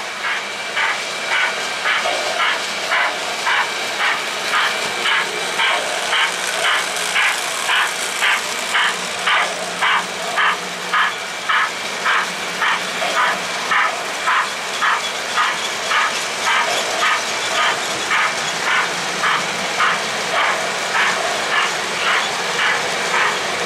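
Lionel O-gauge model freight train running steadily, with a regular beat of about two pulses a second over a continuous rolling noise.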